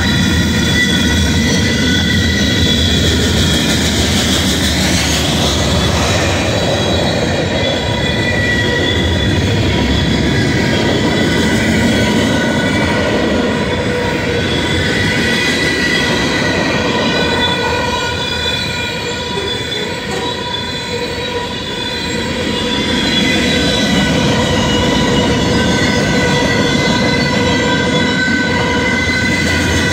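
Long freight train of tank cars, boxcars and autoracks rolling past, wheels rumbling and clattering on the rails, with a steady high-pitched squeal of steel wheels against the rail throughout. It dips slightly in loudness about two-thirds of the way through.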